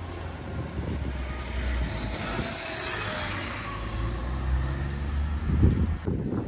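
A motor vehicle driving past on a wet street, the rumble of its engine and tyres swelling towards the middle and then easing off.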